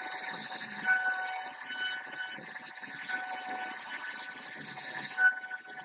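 CNC router spindle carving a wooden door panel: a steady machine whine and cutting hiss, with a pitched tone that rises and falls and a few sharper cutting peaks.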